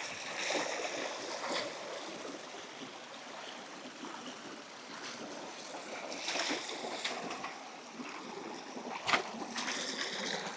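Shallow river water running and splashing, with a few louder splashes and one short, sharp sound about nine seconds in.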